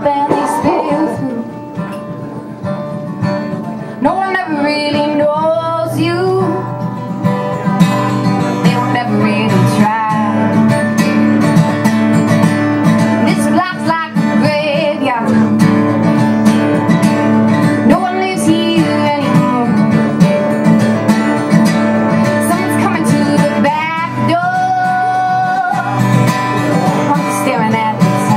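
A woman singing a folk song, accompanying herself on a strummed steel-string acoustic guitar; her voice comes in short phrases with strumming carrying on between them.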